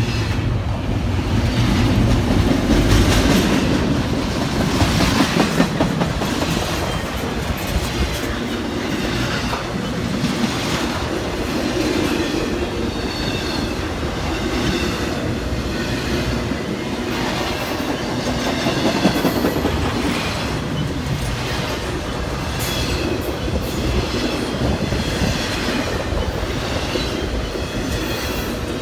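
Freight train cars rolling steadily past, wheels clicking rhythmically over rail joints, with a thin wheel squeal at times.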